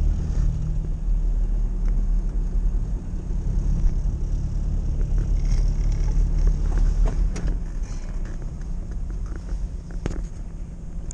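UAZ 452-series van's engine and drivetrain running steadily while driving, heard inside the cab as a low rumble with light rattles, a little quieter over the last few seconds.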